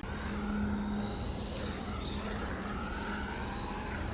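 Brushed 380 electric motor and 4WD drivetrain of a 1:18 HBX 18859E RC truck whining as it drives, the pitch rising and falling with the throttle.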